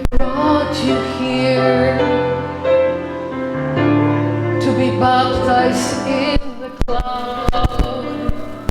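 Live worship music: a held instrumental bed of sustained chords with singing over it, and a few sharp knocks in the last couple of seconds.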